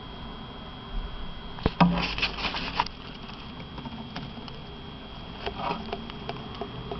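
Hamster rustling and scratching in dry wood-shaving bedding, in crackly bursts about two seconds in and again near six seconds, over a steady hiss from the recording.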